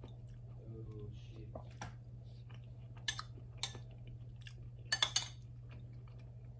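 A metal spoon clicking against a bowl a few times, about three seconds in and again around five seconds, with soft chewing between, over a steady low hum.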